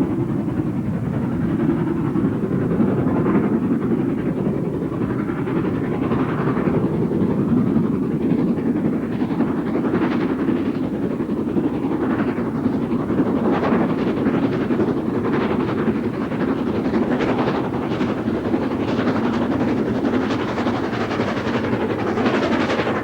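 Steam locomotive running with its train: a steady rumble with sharp repeated beats that come closer together in the second half.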